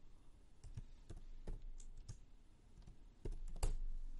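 Computer keyboard being typed on: a run of irregular key clicks, with the loudest strikes bunched near the end.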